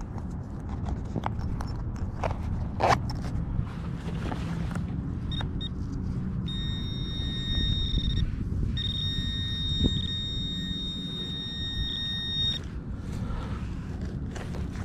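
Handheld metal-detecting pinpointer giving a steady high-pitched electronic tone for about six seconds, with a few brief dropouts, as it alerts on a second target in the same dig hole. A few sharp handling clicks come in the first few seconds, over a low rumble.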